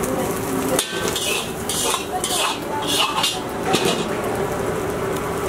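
Metal ladle repeatedly scraping and clanking against a large iron wok as fried rice is stirred and tossed, over a steady hiss.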